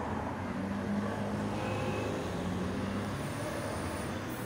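Road traffic: cars driving past close by, a steady noise of engines and tyres with an engine hum that swells a second or so in.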